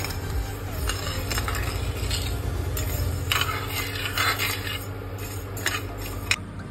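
A steel spatula stirring granulated sugar in water in a steel pan, scraping gritty strokes across the pan's bottom while the sugar is not yet dissolved, at the start of making a sugar syrup. Underneath is a steady low hum.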